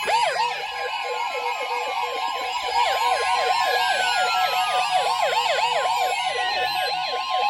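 Weather radio alert for an incoming severe thunderstorm warning: a steady high alarm tone with a siren-like yelp over it, rising and falling about four times a second.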